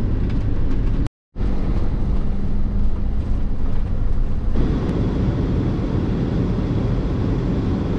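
Steady road and engine noise inside a motorhome's cab while driving. It drops out for a moment about a second in and turns brighter a little past halfway.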